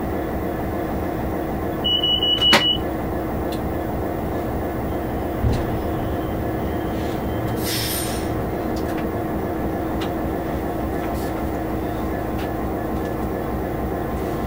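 Class 66 diesel locomotive's two-stroke V12 engine running steadily, heard from inside the cab. About two seconds in there is a brief high-pitched tone ending in a sharp click, then a thump and, around eight seconds, a short hiss.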